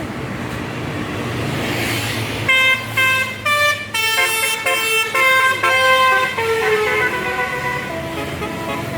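Tour bus's Basuri telolet multi-tone musical horn playing a tune over the bus's engine rumble. About two and a half seconds in it starts with a run of short, quick notes, then moves into longer notes that step down in pitch.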